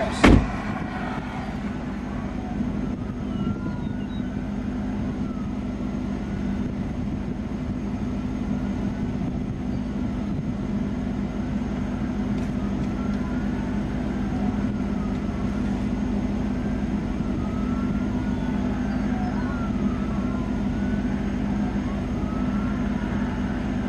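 Distant sirens wailing, their pitch sliding up and down and several overlapping, over a steady low hum of an idling vehicle engine. A single sharp knock comes right at the start.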